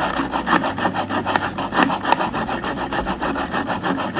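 A steel kitchen knife drawn rapidly back and forth through a handheld IKEA knife sharpener, the blade grating against the sharpener in quick, even rasping strokes, about six a second, to put an edge on it.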